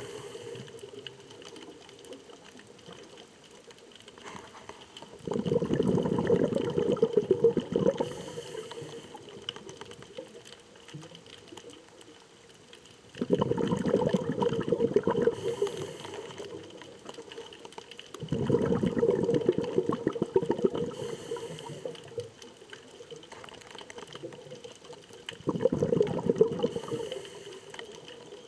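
Underwater sound picked up by a camera submerged in the sea: a faint steady hiss, broken four times by spells of dense crackling, each starting suddenly and lasting two to three seconds.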